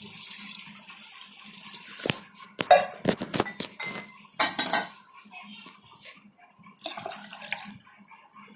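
Water poured into a pot of pounded herbs to start a herbal decoction: a steady splashing pour for about the first two seconds, then a run of clinks and knocks from the vessels.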